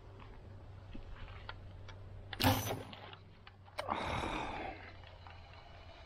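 A bowfishing shot: a sharp, loud snap as the bow is released and the arrow goes into the water, followed about a second later by a short rushing noise.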